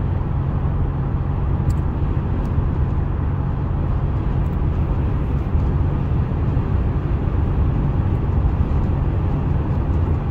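A car cruising on a highway, heard from inside the cabin as a steady low rumble of road noise.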